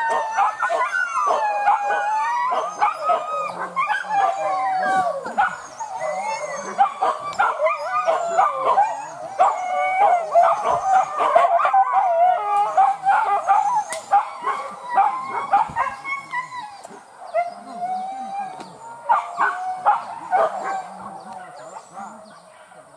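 Several boar-hunting dogs howling and yelping over one another in long, wavering cries, growing fewer and quieter after about seventeen seconds.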